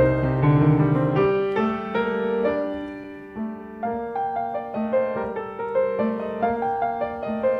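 Piano playing classical music, single notes and chords following one another.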